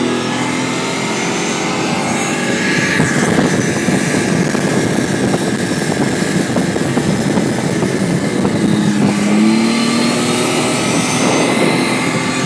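An LAV-25 eight-wheeled armoured vehicle on the move, its Detroit Diesel 6V53T engine and running gear heard from the open gunner's hatch under heavy wind buffeting on the microphone. A low tone rises briefly about nine seconds in.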